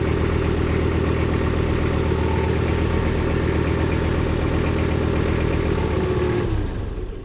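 Tractor engine running steadily, then switched off about six and a half seconds in and winding down to a stop.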